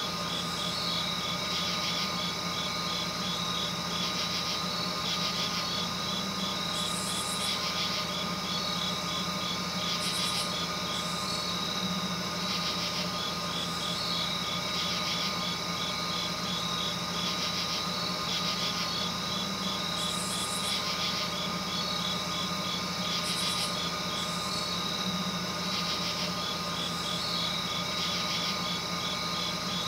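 Night insects chirping in a regular, repeating pattern over a steady low hum.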